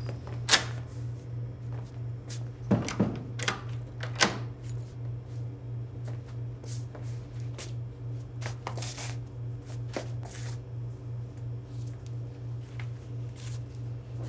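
An apartment front door opening and being shut, with sharp latch and lock clicks in the first few seconds, followed by softer footsteps and small knocks. A low, evenly pulsing hum runs underneath throughout.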